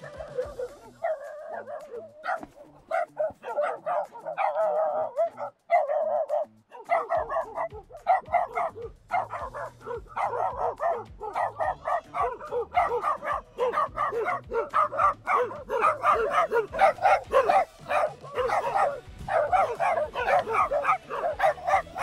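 Several dogs barking at a passer-by, sharp barks following one another almost without a break.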